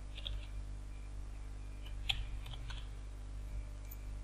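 A few scattered computer keyboard key clicks, typing into a text editor's search bar, over a steady low electrical hum.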